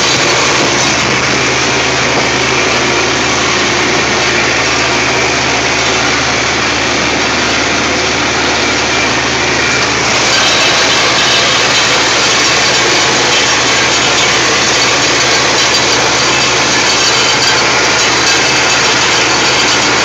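John Deere 4020 tractor's six-cylinder engine running steadily under load, pulling a New Holland square baler that is working behind it; a loud, even drone of engine and machinery that gets a little louder about halfway through.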